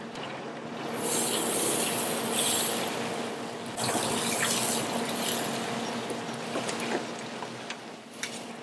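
Beef tri-tip sizzling as it is seared on hot grill grates over a red oak fire. The hiss swells about a second in and again just before four seconds, as the meat is turned and pressed down onto the grates.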